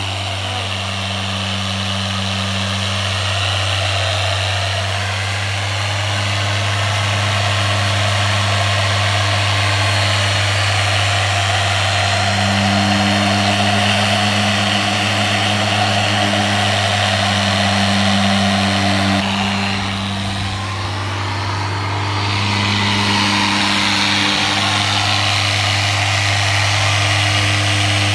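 Harbor Freight corded electric polisher running steadily, spinning a foam pad across car paint. It dips briefly about twenty seconds in, then picks up again.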